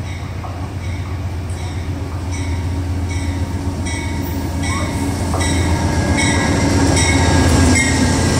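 Amtrak GE Genesis diesel locomotive pulling into the station, its engine rumble growing steadily louder as it draws alongside. A short metallic ringing repeats about every two-thirds of a second from about two seconds in.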